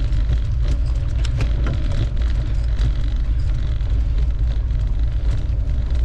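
Wind buffeting the microphone of a mountain-bike ride camera: a steady low rumble, with scattered clicks and rattles from the bike rolling along the trail.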